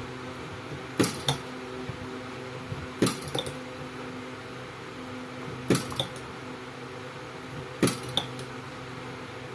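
Battery spot welder firing four times, each weld a sharp crack followed by a second, smaller crack about a third of a second later, over the welder's steady electrical hum.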